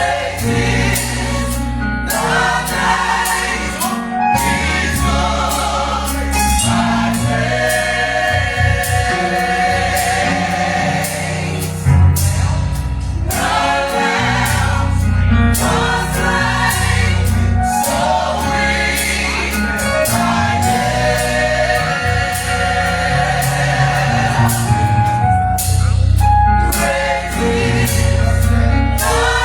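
Gospel choir singing with instrumental accompaniment: sustained sung chords over a strong bass line and regular percussive hits.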